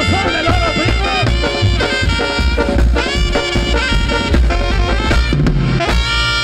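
Tamborazo band playing live: saxophones and brass over a steady beat on the tambora bass drum. The band settles on a long held chord near the end.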